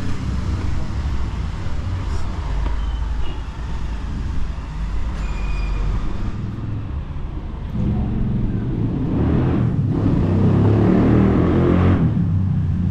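Street traffic: a steady low rumble of passing cars, with a louder vehicle going by close from about eight seconds in until near the end.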